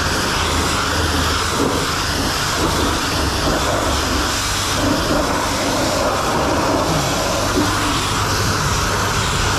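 High-pressure car-wash spray wand blasting water onto a pickup truck's body panels: a steady, unbroken hiss of spray.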